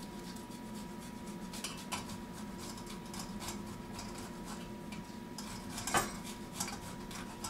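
A garlic clove being grated on a small metal grater over a steel pot: a run of short scraping strokes with light metallic clinks, one louder clink about three-quarters of the way through.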